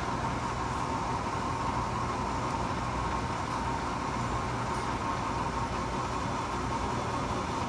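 Laser engraver running as its head moves over a whiskey bottle's label, etching it: a steady machine hum with a constant whine over it.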